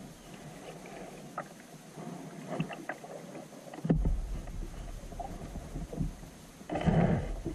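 Kayak paddling on calm water: paddle blades dipping and splashing, with small drips and a thump about four seconds in. A louder paddle splash comes near the end.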